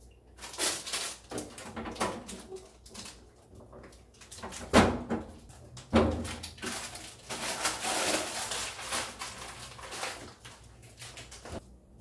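Bottles, jars and packets being taken out of refrigerator door shelves: a run of knocks, clinks and rustling, with two louder thumps about five and six seconds in.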